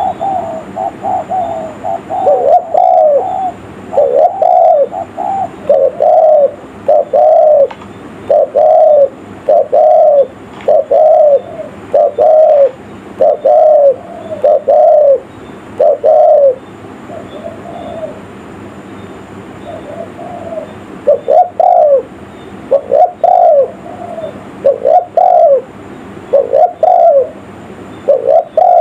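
Spotted dove (tekukur) cooing: the same short, low, curving coo repeated about once a second, softer for a few seconds midway. This is the kind of dove song used as a lure call for wild doves.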